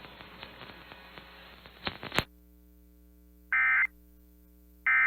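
Emergency Alert System end-of-message data bursts: two short, harsh digital warbles about a second and a half apart, the second beginning near the end, the coded signal that closes the alert. Before them, a faint hum with a couple of clicks about two seconds in.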